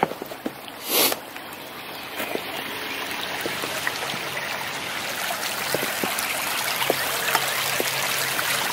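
A shallow creek running over a riffle, an even rushing of water that grows steadily louder, with a short noisy burst about a second in.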